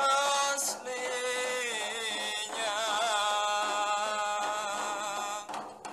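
A voice singing Banjar syair, drawing the end of a verse line out into a long ornamented melody whose pitch bends and wavers. The singing breaks off near the end.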